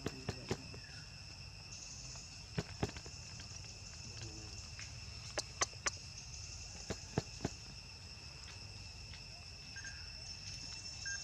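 Steady insect chorus holding two even high-pitched tones, with a few sharp clicks in small groups of two or three scattered through it.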